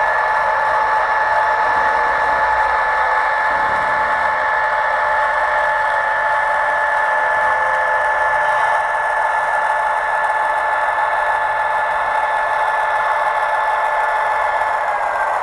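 LokSound sound decoder playing a GE ET44C4 diesel locomotive's running sound through an HO model's small speaker: a steady engine drone with a whine on top, thin and without bass. The whine drops slightly in pitch near the end.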